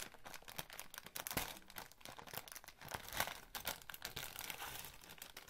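Plastic Lego polybag crinkling and crackling in irregular bursts as fingers squeeze and pull at it to tear it open.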